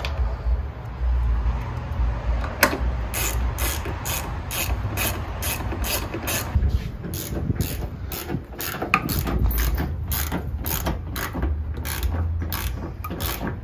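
Hand ratchet wrench clicking as the bumper fasteners are run in and tightened. It goes as a long run of sharp ratchet clicks, a few a second, starting about three seconds in.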